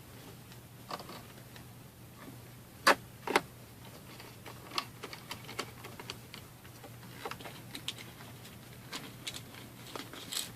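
Small irregular clicks and taps of screws and a precision screwdriver as the screws go back into a laptop's bottom cover, with two sharper clicks close together about three seconds in.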